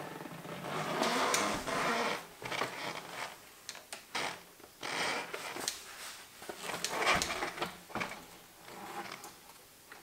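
Irregular light clicks, taps and rattles of a mountain bike's handlebar and stem being handled and worked on with an Allen key.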